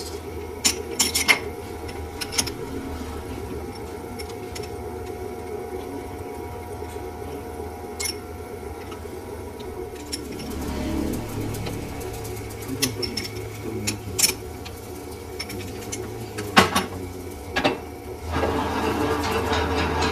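Lathe running with a steady low hum, with scattered sharp metallic clicks and knocks. About eighteen seconds in, a louder, rougher machining noise starts.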